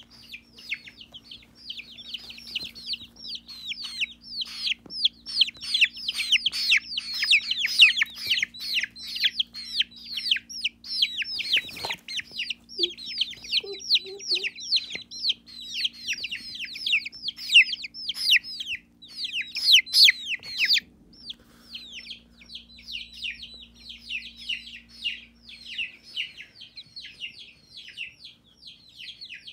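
Young chicks peeping continuously: rapid high-pitched falling chirps, several a second, that thin out after about twenty seconds.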